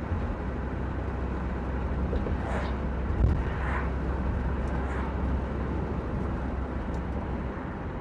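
Van driving along the road, heard from inside the cabin: a steady low engine and road rumble, with a brief bump about three seconds in.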